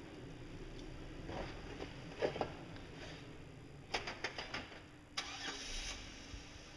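Jeep Wrangler's engine running at low crawl speed, a steady low rumble, with scattered clicks and knocks, a cluster of them about four seconds in, as it works slowly over the muddy, rutted trail.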